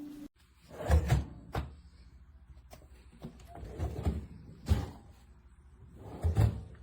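Drawers of a stainless steel beverage refrigerator sliding and shutting, with about five separate thuds spread over several seconds.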